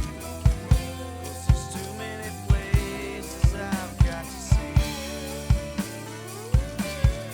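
Drum kit played along with a rock recording: bass drum strokes about twice a second with snare and cymbal hits, under sustained lead guitar lines that bend in pitch.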